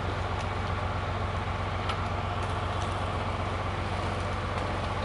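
John Deere tractor's diesel engine running steadily under load while it drags a hung-up tree down, with a few faint clicks over it.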